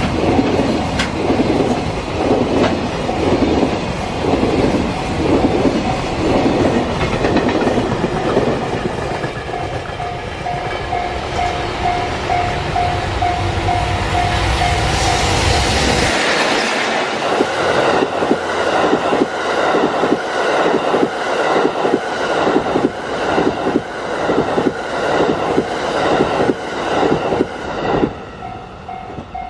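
Japanese railway level-crossing alarm ringing in a steady repeating clang while a train rumbles and clatters past over the rails. The train's rumble stops suddenly about halfway through, leaving the crossing alarm ringing on its own.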